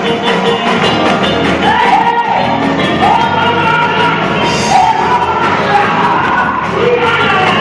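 Loud gospel church music with a quick, steady beat and a voice singing long held notes over it.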